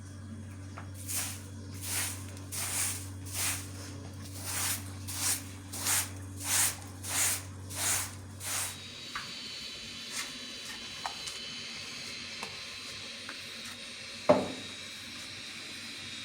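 About a dozen short hissing swishes in a steady rhythm, roughly one every half second or so, over a low hum that stops about nine seconds in. A sharp knock follows near the end.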